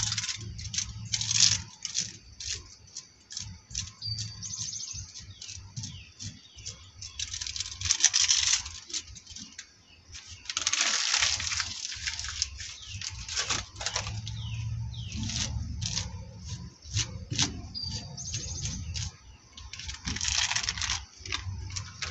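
Crumpled plastic wrapping being crinkled in gloved hands and pressed onto wet spray paint: dense crackling in three longer bursts, with scattered clicks and rustles in between.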